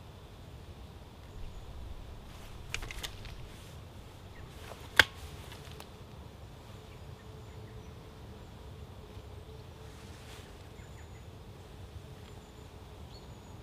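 Quiet field ambience with a faint steady drone, a few soft knocks and one sharp click about five seconds in.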